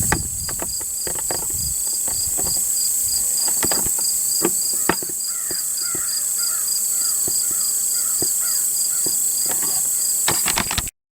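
Evening insect chorus: a steady high cricket buzz with an evenly pulsed chirp beneath it, broken by scattered sharp clicks. Midway, a run of short chirping calls. It cuts off suddenly near the end.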